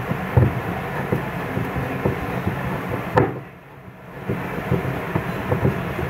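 A long screwdriver working on the bolts between a washing machine's pulley and gearbox: irregular scraping clicks and knocks of metal on metal over a steady rumbling noise, which drops away for about a second a little past the middle.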